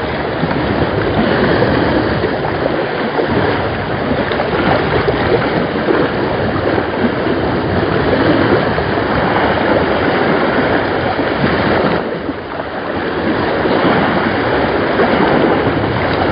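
Sea waves washing and churning against the shore rocks, a steady loud wash that eases briefly about twelve seconds in, with wind on the microphone.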